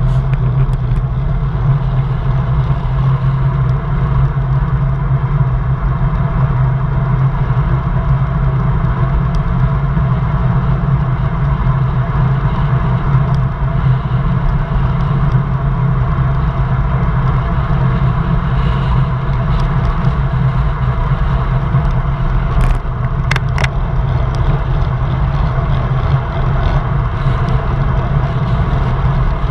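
Steady wind rush and road noise on the microphone of a handlebar-mounted camera on a road bicycle descending at speed, with a few sharp clicks a little over twenty seconds in.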